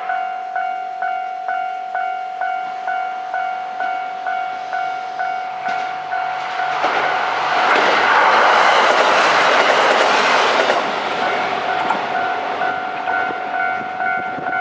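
Japanese level-crossing warning bell ringing steadily, about two strikes a second. For about four seconds midway it is drowned out by a two-car KiHa 122 series diesel railcar running over the crossing with engine and wheel noise. The bell rings on after the train has passed.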